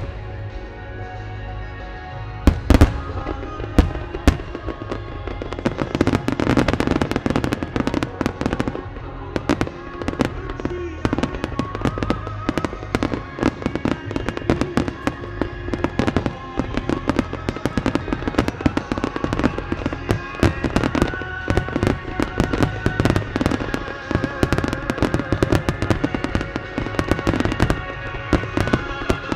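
Star mine fireworks barrage: shells bursting in quick succession, with a few heavy booms in the first few seconds and then dense, rapid crackling. Music plays underneath.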